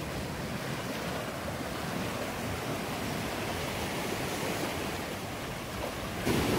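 Sea surf washing over rocks and around a rusted shipwreck at the shoreline: a steady rush of waves, with a louder surge near the end.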